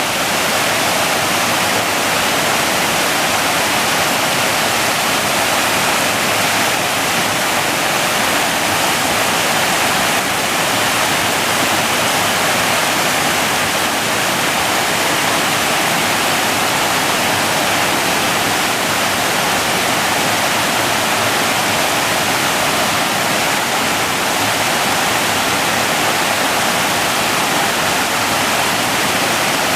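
Waterfall: a steady, loud rush of falling water that stays even throughout, more hiss than low rumble.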